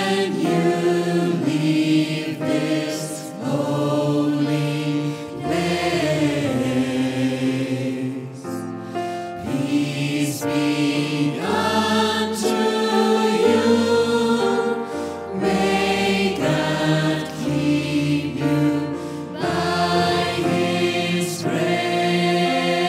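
Gospel choir singing a sustained, slow-moving song, with held chords that change every second or so.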